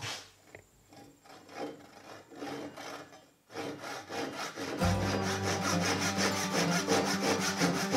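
Pull saw cutting a kerf down into the top of a wooden hatchet handle clamped in a vise, ripping with the grain. The strokes are light and spaced at first, then settle into a louder, steady back-and-forth rhythm from about halfway.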